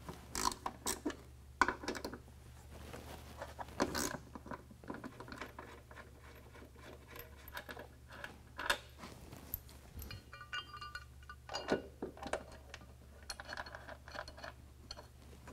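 Scattered metallic clinks and taps of steel bolts, washers and a steel step bracket being handled against a truck's rocker panel, with a short run of ringing clinks about ten seconds in.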